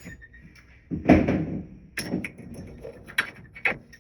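Knocks and clicks from handling the parts of a vintage dehumidifier, with one heavier thump about a second in and several sharp clicks after it.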